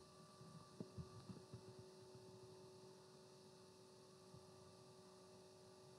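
Near silence with a faint steady electrical hum, and a few soft low knocks about a second in.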